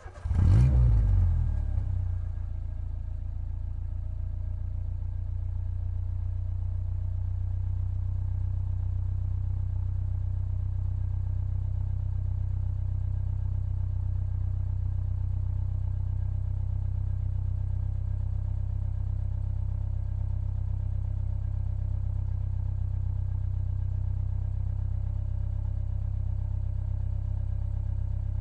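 Car engine running with a steady low rumble, louder for the first second or two before settling to an even level.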